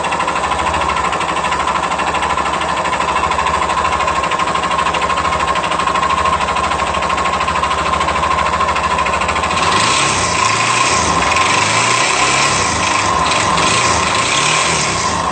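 Yamaha Fazer 250 single-cylinder motorcycle engine running steadily at idle, then revved up and down several times from about ten seconds in.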